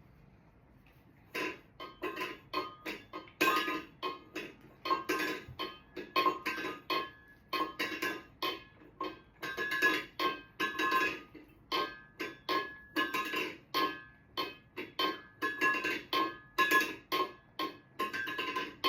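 A run of short ringing clinks, each ringing at the same two clear pitches and dying away quickly, about two or three a second at an uneven pace. They start about a second and a half in.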